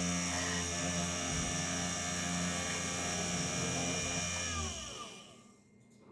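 3018 desktop CNC machine's spindle motor running at steady speed with a whine, then switched off about four and a half seconds in and winding down, its pitch falling as it coasts to a stop.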